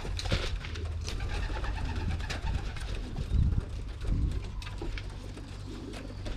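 Racing pigeons cooing, low and repeated, with a few scattered sharp clicks.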